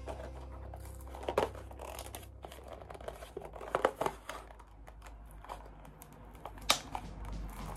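Clear plastic retail packaging with a card insert being pulled open by hand: crinkling and crackling, with sharp crackles about a second and a half in, around four seconds in and near the end.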